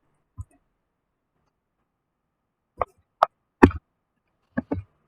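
A handful of short, sharp knocks and clicks at uneven intervals, the loudest about three and a half seconds in, with a quick pair near the end.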